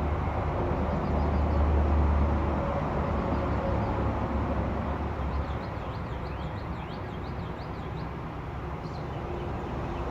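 Outdoor background noise with a low rumble that swells and then fades over the first few seconds, followed by a run of quick, high chirps in the middle.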